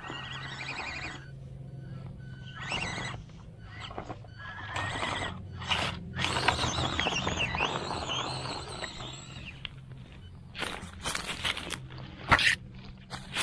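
Axial SCX24 RC crawler's small electric motor and metal-geared drivetrain whining as it crawls, the whine rising and falling in pitch with the throttle, over a steady low hum. Dry leaves and twigs crackle and snap under the tyres.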